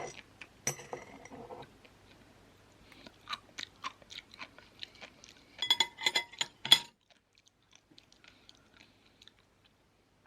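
Close-miked chewing of sea grapes: small crisp pops and wet clicks as the seaweed beads burst in the mouth, with a quick loud run of pops about six seconds in. The chewing stops about seven seconds in, leaving only faint ticks.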